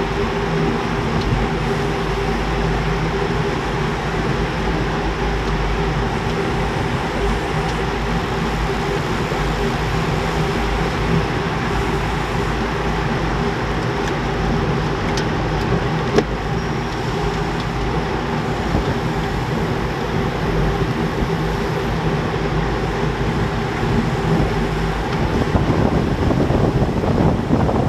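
Steady rolling noise of a racing bunch of road bicycles heard from a bike-mounted camera at about 50 km/h: tyres humming on asphalt and drivetrains whirring, with one sharp click about halfway through. The noise grows louder near the end.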